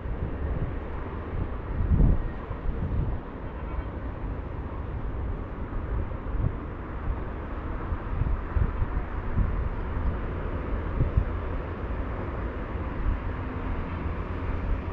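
Wind gusting on the microphone, low and uneven, over a steady distant hum of city traffic.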